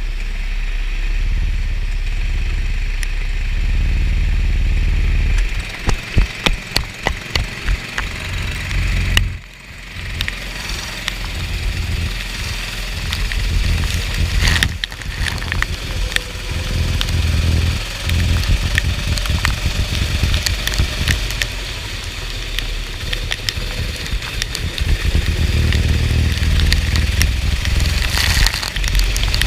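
Go-kart engine running: a steady drone at first, then about six seconds in it pulses in quick even surges for a few seconds, drops out briefly and picks up again unevenly. A hiss of rain and water spray runs underneath.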